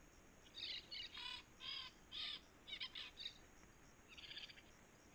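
Faint recorded birdsong added as a background track: a quick series of short, high chirping notes, then a pause of about a second before one last, softer note near the end.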